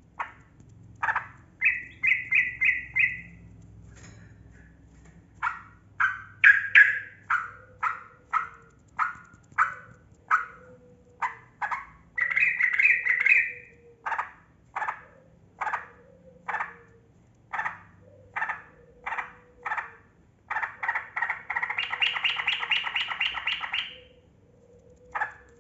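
Yellow-vented bulbul (trucukan) singing: a string of sharp chirped notes, about two a second, broken three times by fast rolling trills, the longest near the end.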